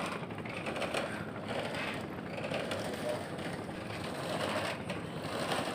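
Spinning fishing reel being cranked: a steady mechanical winding noise with faint, irregular clicks.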